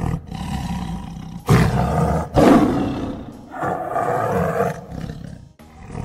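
Tiger roaring: a run of deep, rough roars one after another, loudest about a second and a half in.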